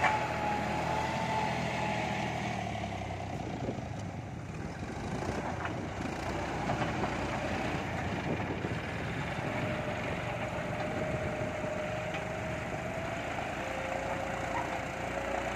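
John Deere 5310 tractor's three-cylinder diesel engine running steadily while the tractor works a front dozer blade through soil. A thin whine rides over the engine and drops lower in pitch in the second half.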